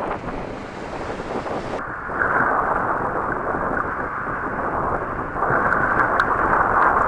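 Strong gusty wind buffeting the microphone over lake waves washing against and over a pier, growing louder in the last few seconds.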